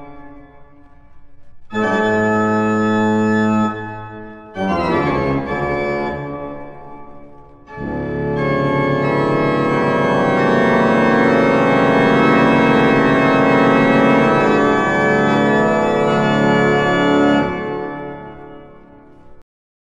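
Opening theme music of long sustained organ chords: two shorter chords with gaps between them, then a long full chord held for about ten seconds that fades away near the end.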